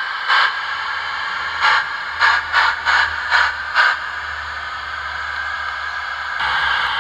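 Steam-locomotive sound card in a radio-controlled Gauge 1 model locomotive, playing about seven chuffs through its speaker over the first four seconds as the loco backs up, over a steady steam hiss. The chuffs are not yet matched to the wheel revolutions, and the hiss is set too loud.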